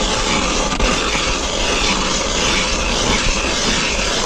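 Wind rushing over the microphone: a steady, unbroken noise with a low rumble beneath it.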